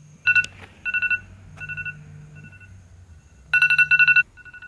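iPhone alarm going off: clusters of rapid electronic beeps, swelling louder and fading softer by turns, loudest about a second in and again near the end.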